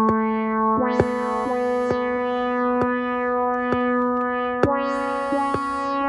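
Synthesizer beat built from sampled Minimoog Model D sounds: a held synth note stepping to a new pitch a few times over a steady click-like drum hit about once a second, with two swells of bright hiss.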